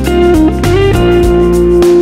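Background music with guitar: a run of short notes with one note held for about a second in the middle.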